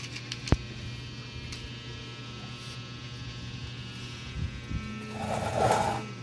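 Steady electrical hum, with a single sharp click about half a second in and a short, louder noisy burst near the end.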